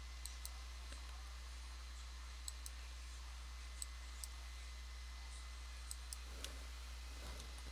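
Faint, scattered clicks of a computer mouse, about ten in all, some in quick pairs like double-clicks, over a steady low hum.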